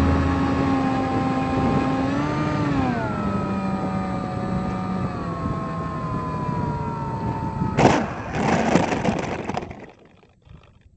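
Small RC plane's electric motor and propeller whine, heard from the airframe; the pitch dips and recovers, then slowly falls as the plane comes in to land. About eight seconds in, a knock as it touches down, then the foam fuselage scrapes and rustles through grass for under two seconds before going quiet as the plane stops.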